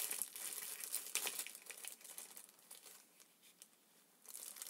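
Crinkly packaging being handled: faint, irregular crackling that dies away in the middle and starts again near the end.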